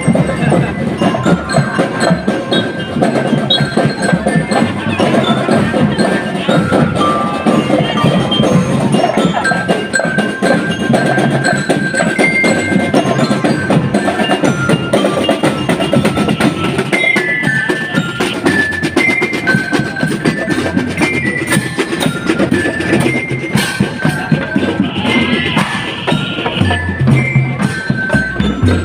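Drum and lyre corps playing a march: bell lyres ring out a melody of short high notes over a steady beat of snare and bass drums.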